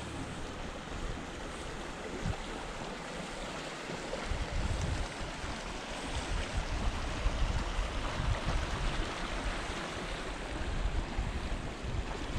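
A small mountain stream rushing steadily over little cascades. Wind buffets the microphone with low rumbles, stronger from about four seconds in.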